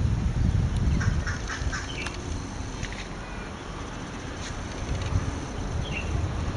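Birds calling outdoors: a few short high chirps and a brief run of quick calls about a second in, over a steady low rumble that is typical of wind on the microphone.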